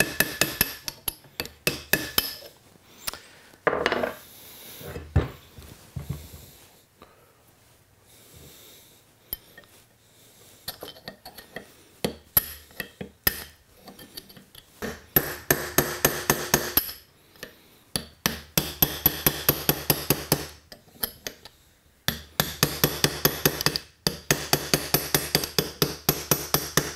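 Hammer striking a steel pin punch to drive a small pin out of a cast-iron vise jaw. A few separate taps come first, then a quieter stretch, then long runs of rapid, even taps with a metallic ring.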